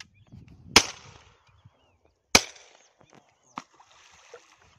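Two shotgun shots about a second and a half apart, each a sharp crack with a short echoing tail, then a fainter third crack about a second later.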